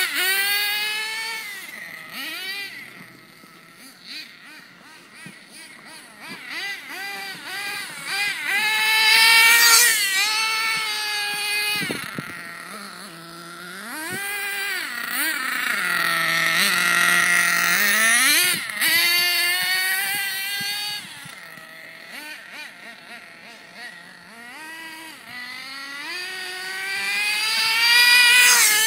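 Small carbureted nitro engine of a Redcat Aftershock 3.5 RC truck revving up and down as it drifts and spins on ice, its high whine rising and falling with the throttle. It grows louder as the truck comes close and fades as it drives away.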